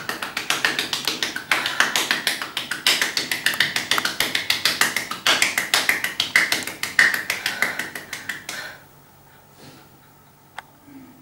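Rapid tapping, several sharp strikes a second, that stops abruptly about nine seconds in; one single sharp click near the end.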